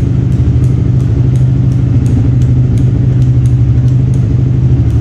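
Yamaha R15 v2's single-cylinder engine idling steadily, with a light regular tick about three times a second.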